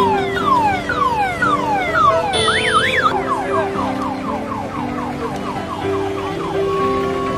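An electronic siren or car alarm cycling through its patterns: falling whoops about twice a second, a quick up-and-down warble about two and a half seconds in, then faster falling sweeps about four a second that stop near the end. Background music with held notes plays underneath.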